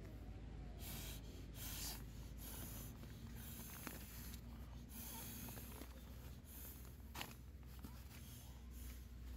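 Synthetic fabric of an inflatable camping pillow rustling and crinkling as it is handled, with short puffs of breath blown into it to inflate it.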